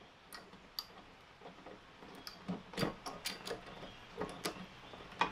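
Spark plug socket wrench on a Honda lawnmower engine giving short, irregular clicks, about two or three a second, as the spark plug is loosened.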